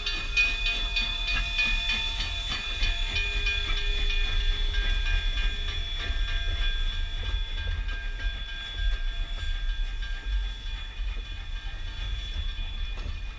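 Kamloops Heritage Railway 2141, a 2-8-0 steam locomotive, passing slowly as it pulls into the station, followed by its passenger coaches rolling by on the rails. A steady high squeal rings over a low rumble, with about three clicks a second in the first few seconds.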